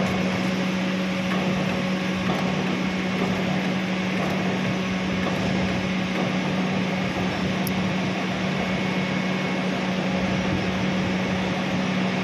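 Steady low electric machinery hum with an even wash of mechanical noise, unchanging throughout.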